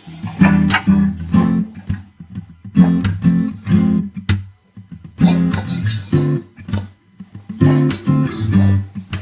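Instrumental intro of a pop song: rhythmic guitar strumming over a bass line, with two brief pauses.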